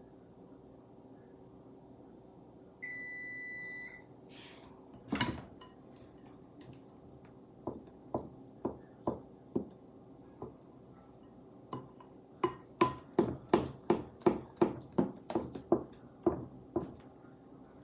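A wooden spoon knocks and scrapes red velvet cake batter off the metal beaters of an electric hand mixer, making sharp ringing taps. The taps start sparse, then come about three a second. About three seconds in there is a single electronic beep lasting about a second, over a faint steady hum.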